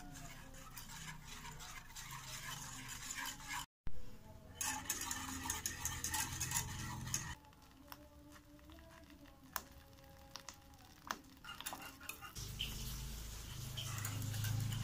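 Wire whisk stirring a coconut-milk and cornstarch mixture in a metal saucepan, its wires scraping and tapping against the pan with light clicks. The sound breaks off abruptly about four seconds in, and a low hum comes in near the end.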